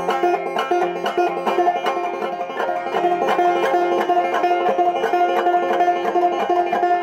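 Five-string open-back banjo played clawhammer style in a quick, even run of plucked notes: the double shuffle, the right hand striking the third string while the left hand plucks off the second string.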